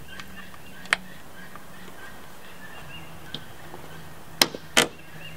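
Gutter-trim retaining clips being snapped onto a Jeep Cherokee XJ's roof drip rail: a sharp click about a second in, then two louder clicks close together near the end.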